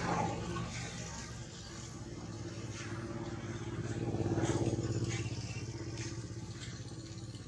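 A motor engine running steadily with a low hum. It grows louder about four seconds in, then fades back.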